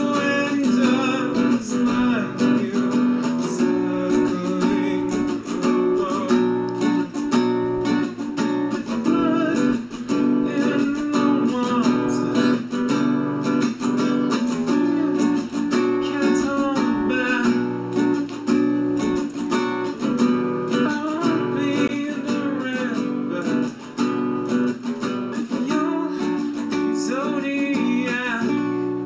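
Nylon-string acoustic guitar strummed and picked, with a voice singing along.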